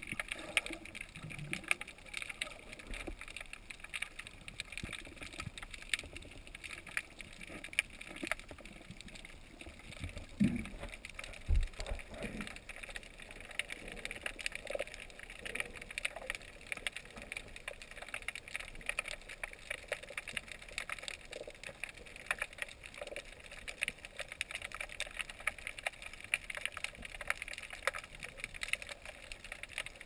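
Underwater ambience heard through a camera's waterproof housing: a steady dense crackle of tiny clicks, with two low thumps about ten and eleven seconds in.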